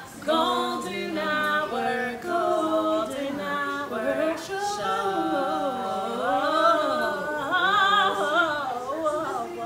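Two women singing a song together, with long held notes that waver in pitch.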